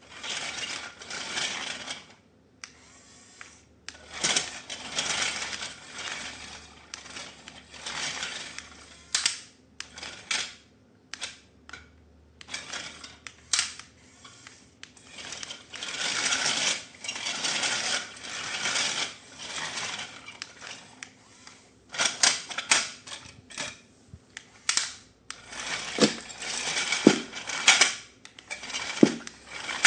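Toy packaging and plastic parts handled: irregular rustling and crinkling with many sharp plastic clicks, and several sharper knocks near the end.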